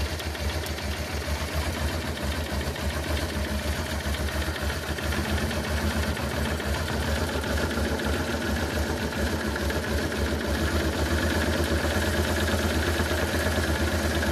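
Honda Transalp V-twin engine idling with a fast, even pulse, getting a little louder about a third of the way in. The carburettor's air-fuel mixture screw is being opened half a turn to cure a rough, unstable idle, and the running improves.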